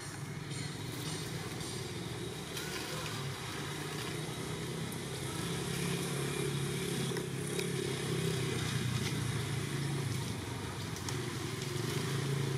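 A motor engine running steadily, a low hum that grows a little louder about halfway through, with faint scattered ticks over it.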